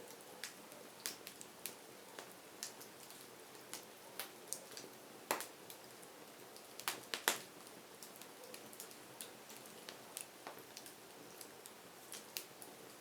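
Burning firewood crackling: irregular sharp pops and snaps over a soft steady hiss, with the loudest pop about five seconds in and a quick pair of loud snaps around seven seconds.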